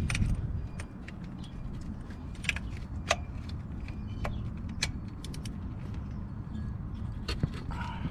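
Scattered, irregular metallic clicks and clinks of a small ratchet and 10 mm socket being worked onto and at the thermostat housing bolts in a cramped space, over a steady low rumble.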